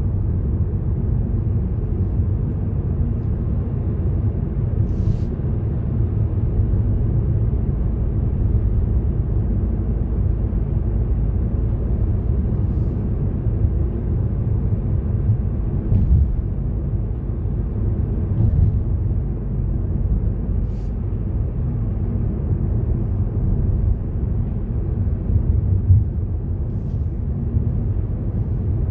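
Car driving along a road: a steady low rumble of engine and tyre noise, with a couple of faint clicks.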